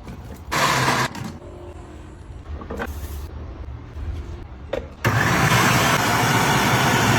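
Electric mixer grinder motor run in two bursts: a brief pulse about half a second in, then a longer loud run starting about five seconds in that cuts off suddenly.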